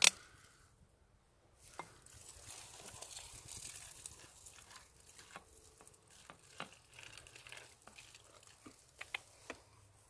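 Koala drinking water from a plastic bottle held to its mouth: faint crackling with scattered small ticks of lapping, water and bottle plastic.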